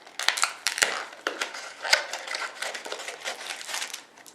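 A trading-card pack wrapper being torn open and crinkled by hand, a run of sharp crackles.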